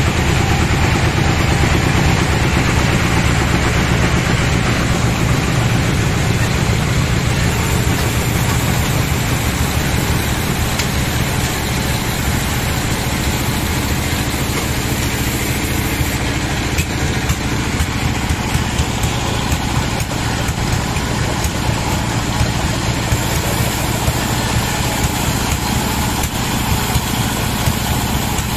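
Band sawmill machinery running with a steady low engine hum and constant mechanical noise, a little louder in the first few seconds.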